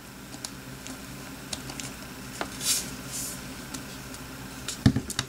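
Small handling sounds from adding lotion to a bowl of slime ingredients: scattered light clicks and taps, two short hissing squirts about halfway through, and two louder knocks near the end.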